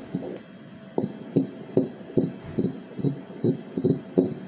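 A 16-week fetus's heartbeat played through an obstetric ultrasound machine's Doppler: a regular pulsing at about two and a half beats a second, settling into a steady rhythm about a second in. It is a nice, strong fetal heartbeat.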